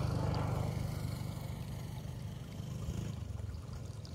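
A motor engine running out of sight, a low rumble that is loudest in the first second and then eases off a little.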